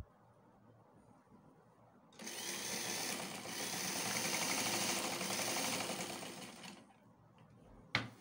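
Electric sewing machine running for about four and a half seconds, stitching a line of small top stitches along a trouser pocket, then stopping. A sharp click comes near the end.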